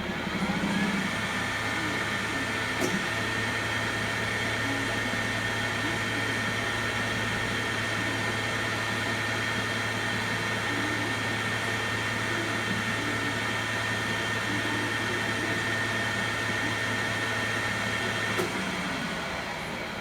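Takisawa TAL-510 engine lathe running: the spindle drive spins up with a rising whine, runs steadily with a high whine over a low hum, then winds down near the end. There is a click a few seconds in, and another as it stops.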